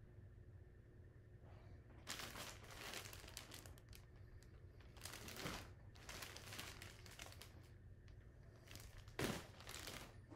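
Clear plastic bag crinkling around a jersey as it is handled and opened, in several rustling bursts, the sharpest near the end.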